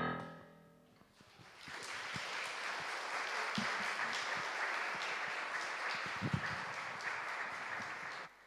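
The song's last violin note ends, and about a second later the audience starts applauding. The clapping carries on steadily for several seconds, then cuts off abruptly near the end.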